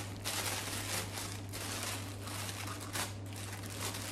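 Thin clear plastic bag crinkling as hands work it open around a mannequin head, in irregular bursts of rustling.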